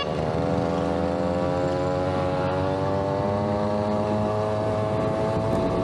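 Small 63cc two-stroke Huasheng engine of a stand-up scooter under way, its pitch climbing steadily over several seconds as the scooter accelerates.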